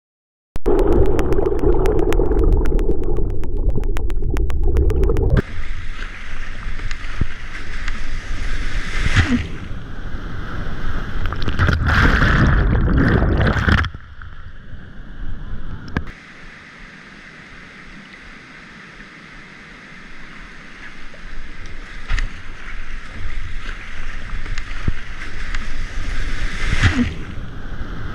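Whitewater rapids rushing and splashing close around a kayak and paddle. It cuts in suddenly about half a second in, drops much quieter for several seconds around the middle, then builds back up.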